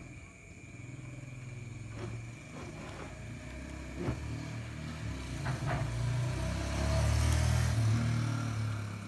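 A low engine rumble, like a motor vehicle going by, swells to a peak near the end and then eases off. A few sharp clicks come earlier from the chronograph's metal LED light bar and pin being fitted by hand.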